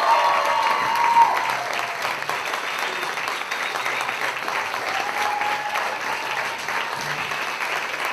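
Theatre audience applauding steadily: dense, sustained clapping at a curtain call.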